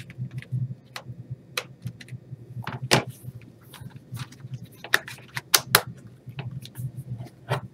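Scattered sharp clicks and knocks of a Lenovo ThinkPad T450 laptop's plastic case being handled and turned over, the loudest about three seconds in and a quick cluster between five and six seconds.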